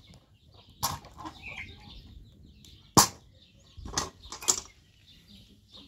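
A few sharp metallic clanks as a domed iron saj griddle is handled and set back down on its fire stones, the loudest about three seconds in and two more close together about a second later. Chickens cluck faintly in the background.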